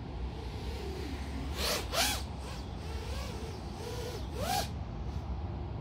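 5-inch FPV quadcopter's motors and propellers: a steady rush of noise with short whines that rise and fall in pitch as the throttle is blipped. The loudest come about two seconds in and again near four and a half seconds, each with a brief gusty rush.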